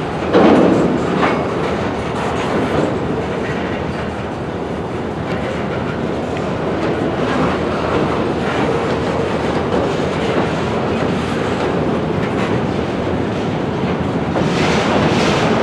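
Railroad freight cars rolling along yard track in a steady rumble, their wheels clicking over the rail joints, with a heavy thump about half a second in.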